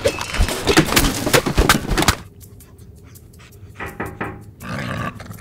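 Loud, rapid rustling and clattering for about two seconds, then stopping abruptly. An English bulldog breathes and pants quietly, with a few short breaths near the end.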